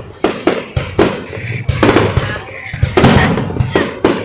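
Fireworks going off: a rapid, irregular string of sharp bangs and cracks, several a second, over a low rumble.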